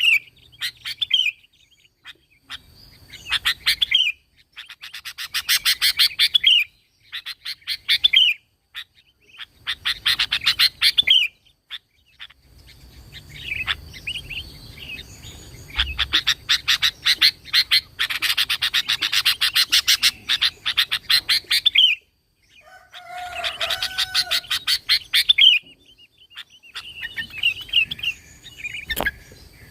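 Sooty-headed bulbul (kutilang) singing vigorously in repeated bouts of fast chattering notes, each bout one to a few seconds long with short pauses between.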